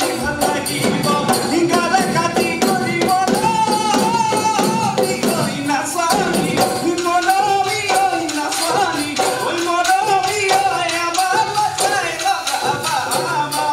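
Live Bihu music: dhol drums and taal hand cymbals play a fast, steady beat under a wavering melody line.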